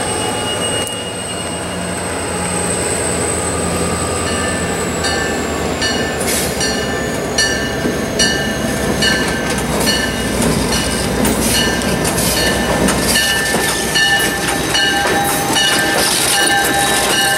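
EMD F40PH diesel locomotive rolling slowly past, its engine running with a steady drone and a thin high squeal sliding slightly lower over the first few seconds. From about five seconds in its bell rings steadily, about two strokes a second.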